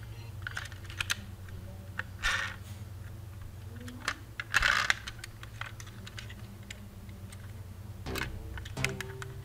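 Toy vehicles clicking and clattering as they are handled and lifted out of a wicker basket, with two brief scraping rustles, over a low steady hum.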